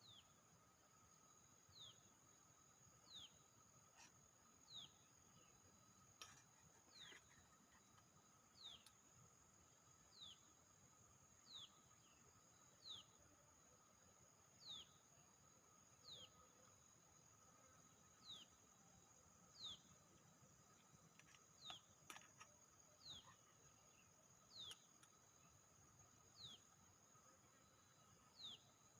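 Faint calls of a small animal: a short falling chirp repeated about every one and a half seconds, over a faint steady high-pitched whine.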